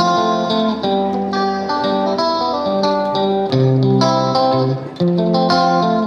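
Background music: a plucked guitar melody with quickly changing notes over a bass line.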